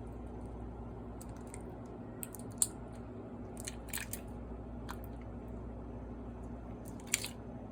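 Sticky slime being squeezed and pulled apart by hand, giving scattered small wet clicks and pops, one sharper pop a little over two seconds in.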